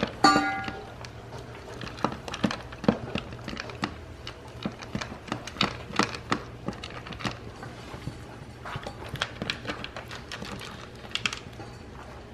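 A puppy eating dry kibble from a plastic slow-feeder bowl: a steady run of irregular clicks and taps as its muzzle pushes the kibble around the bowl's ridges, with crunching. A brief squeak comes just after the start.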